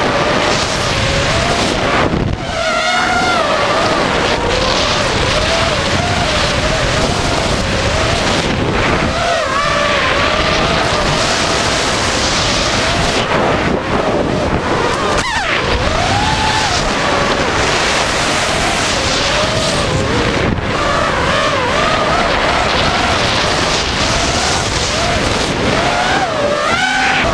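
Onboard audio of a 5-inch racing quadcopter's Emax RS2205 brushless motors spinning DAL props: a motor whine that rises and falls with the throttle, over a heavy rush of wind and prop wash on the microphone.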